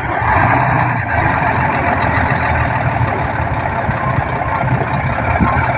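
Heavy diesel dump truck engine running steadily under load, a deep rumble with a rough mechanical roar above it, as the loaded truck works through soft mud.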